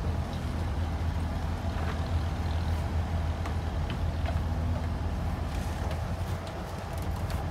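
Abra water taxi's engine idling: a steady low hum with a fainter steady whine above it, and a few faint knocks.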